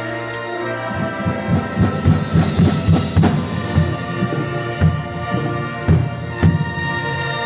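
Marching band playing: brass and winds hold sustained chords while a quick flurry of drum hits starts about a second in, thinning out to a few single heavy strikes near the end.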